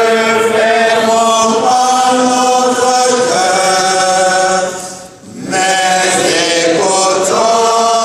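Church singing in a chant style: voices hold long, steady notes, break off briefly about five seconds in, then resume. It is the sung psalm that follows the first reading at Mass.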